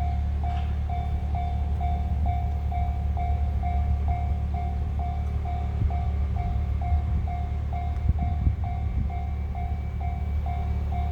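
Japanese level-crossing warning bell ringing steadily, a little over two dings a second, over the low rumble of a JR 211 series electric train passing, with a few louder knocks of the wheels partway through.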